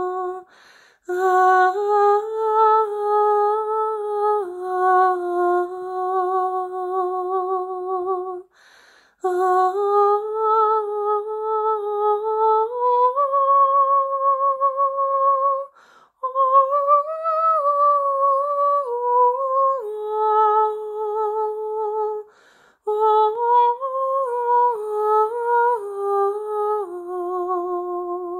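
A person humming a slow wordless melody with no accompaniment, in long held phrases with a short breath between them.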